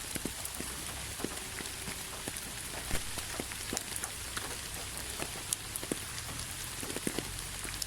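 Steady rain, a constant hiss with many separate drops ticking and pattering on a surface at irregular moments.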